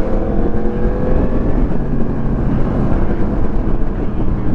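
Motorcycle engine running under way, its pitch climbing slowly over the first second and a half and then holding steady.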